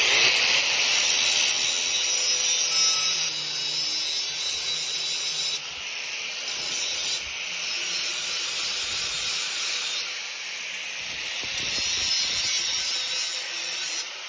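An abrasive cut-off wheel cutting through steel angle iron: it spins up with a rising whine at the start, then gives a steady, loud, high grinding hiss, and winds down with a falling whine at the end.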